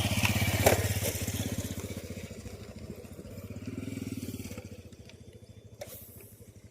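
A small engine running nearby, louder in the first second, easing, swelling again around four seconds and then fading away. A sharp click about two-thirds of a second in and another near six seconds.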